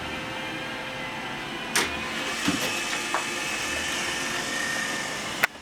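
iRobot Roomba i7+ robot vacuum running, a steady motor whir with a faint high whine, broken by two sharp clicks about two seconds in and near the end; the whir drops off abruptly after the second click.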